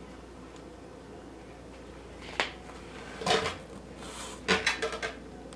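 A few short, sharp knocks and clatters of hard objects: one click about two and a half seconds in, then two quick clusters of knocks toward the end.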